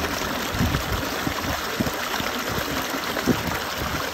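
Small stream rushing and gurgling over rocks, a steady wash of water with irregular low surges.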